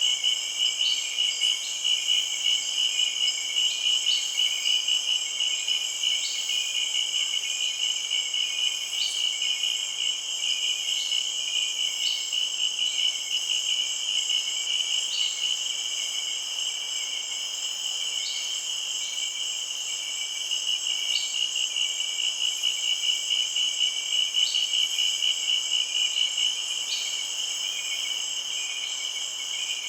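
Insects, cricket-like, trilling in a steady, finely pulsing chorus, with a short higher chirp every second or two.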